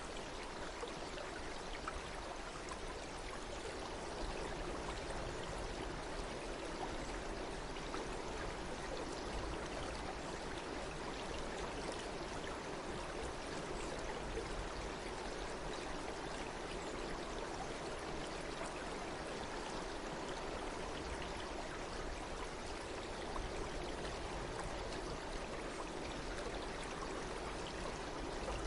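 Flowing stream water, a steady even rush with a low rumble underneath and no breaks.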